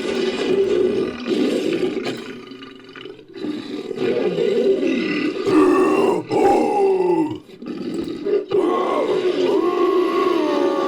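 Designed ape-like creature vocalizations, made from a human voice mixed with film ape sounds: a run of grunts and roars whose pitch slides up and down, broken by brief pauses a few times and ending on a long held call.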